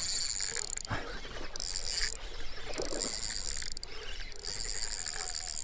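Spinning reel cranked in four spells of about a second each with short pauses, its gears giving a high whir, as a hooked pike is reeled in.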